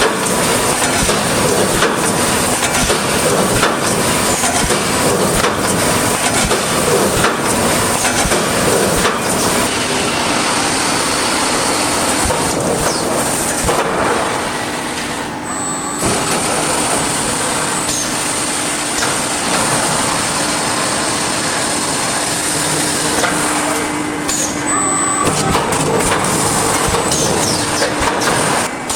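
Automatic wire mesh fence welding line running: continuous loud machine noise with repeated metallic clanks and clicks, briefly dipping twice where the footage changes.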